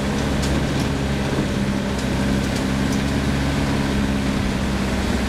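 Four-wheel-drive vehicle's engine running at a steady speed while driving over a rough dirt track, with a few light knocks and rattles.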